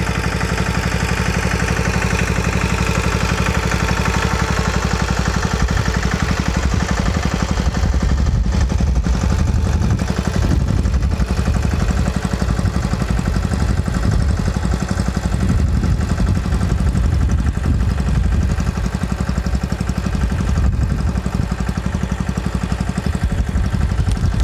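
Engine of a saneda, a motorcycle-based farm tractor, running steadily under load as it pulls a horse-hoe weeder through the soil between cotton rows, with a fast even chugging. The low rumble grows heavier and less even about five seconds in.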